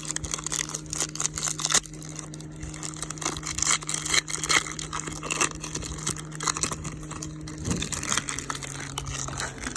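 Crinkly plastic wrapper of a pack of Topps Stadium Club baseball cards being torn open and handled, a dense crackling rustle over a steady low hum.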